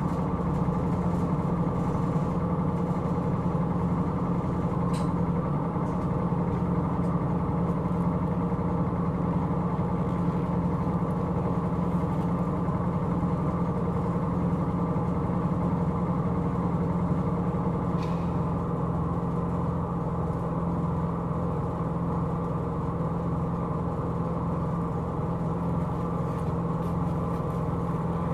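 Hino Rainbow II non-step city bus, its diesel engine running with a steady drone.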